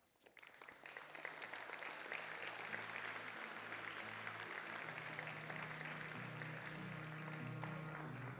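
Audience applauding: the clapping builds over the first second and then holds steady. Low held music notes come in beneath it about two and a half seconds in.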